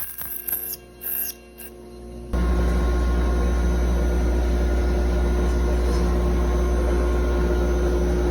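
Onefinity CNC router: a few short high-pitched whirs over a low hum, then about two seconds in a loud, steady machine noise with a low hum and several steady tones starts abruptly and runs on.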